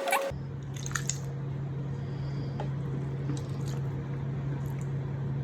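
Watery glue slime being stirred in a bowl: faint wet squishes and drips over a steady low hum.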